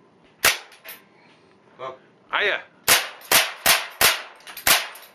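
Air pistol shots: a sharp crack about half a second in, then a rapid string of about six shots, roughly three a second, starting about three seconds in, as pellets punch through a paper target backed by metal.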